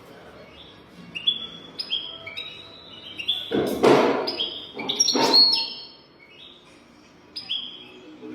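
European goldfinch singing: a string of short, high, falling twittering notes, about two a second, with two louder harsh, rasping sounds about four and five seconds in.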